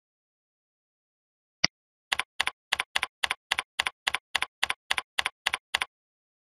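A single mouse click, then a run of about a dozen computer keyboard keystrokes at an even pace, about three a second, stopping shortly before the end.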